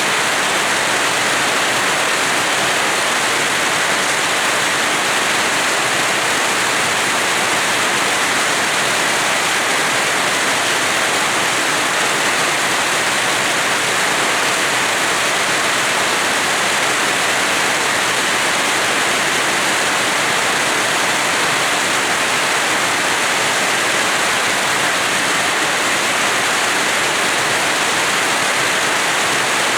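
Steady rain falling in a yard: a dense, even hiss of water that does not change over the whole stretch.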